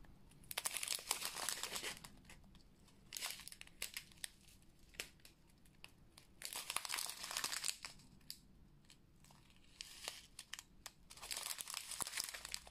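Small clear plastic zip bags of resin diamond-painting drills crinkling as they are picked up and handled, in several short bursts with quiet gaps between.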